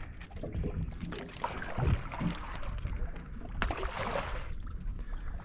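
Water lapping against a small boat's hull with wind on the open water, and a sharp click about three and a half seconds in.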